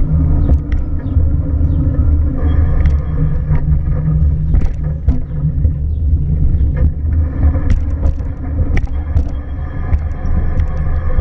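A car's low, steady rumble, with scattered short clicks and knocks over it.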